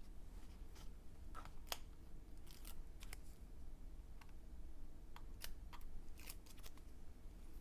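Light, irregular clicks and snips, about a dozen, over a faint low hum: scissors and small tools handling double-sided tape.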